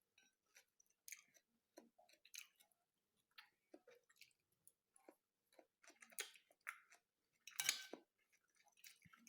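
A person chewing a mouthful of food close to the microphone: soft, irregular wet clicks and smacks of the mouth, with one louder smack a little before the end.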